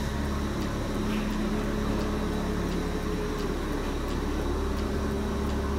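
Steady hum and hiss of commercial kitchen machinery, with a faint droning tone that drifts up and down in pitch.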